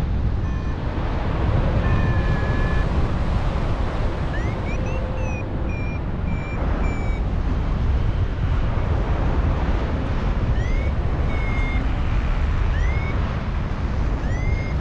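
Strong wind rushing over the microphone in flight, with a paragliding variometer's short electronic beeps and rising chirps sounding on and off, the vario's climb signal in lift.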